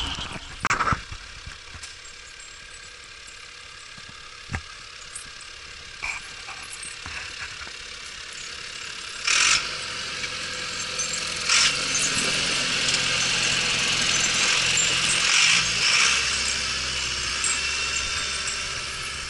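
Zetor 9540 tractor's diesel engine running as it passes with its snow plow, growing louder from about halfway through and easing slightly near the end. A few sharp knocks and rattles come before it.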